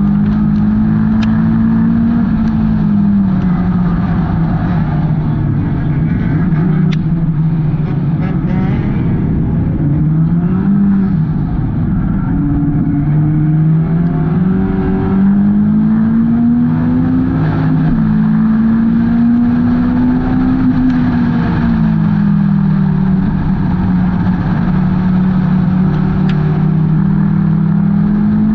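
Hornet-class race car's four-cylinder engine running hard around an oval, its pitch climbing on the straights and dropping back in the turns several times, with a few faint clicks.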